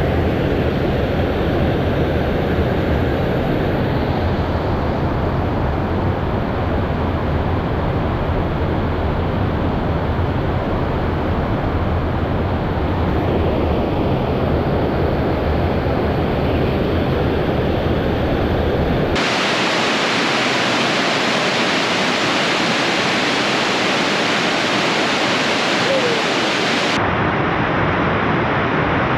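Steady rush of water pouring over a river lock and dam. Its tone shifts abruptly twice, about two-thirds of the way through and again near the end.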